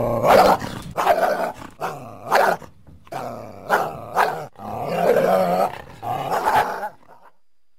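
Coyote barking and yipping: a string of short, sharp calls about once a second, stopping about seven seconds in.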